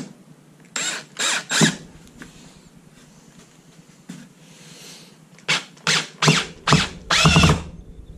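Cordless drill with a screwdriver bit driving a long screw into a 2x4, run in short bursts of the trigger: a few in the first two seconds, then a quicker series from about five and a half seconds on, with one longer run of motor whine.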